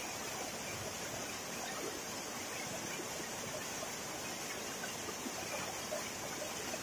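Waterfall splashing down into a pool: a steady, even rush of falling water.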